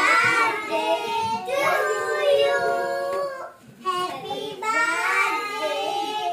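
A child singing, unaccompanied, in two phrases with a short break about three and a half seconds in.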